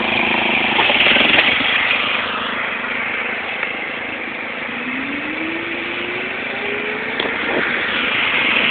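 Lawn mower engine running, its pitch rising steadily for a couple of seconds past the middle as it revs up.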